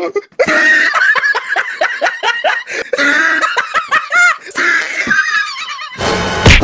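Laughter in rapid high-pitched bursts. Near the end there is a loud, sharp hit.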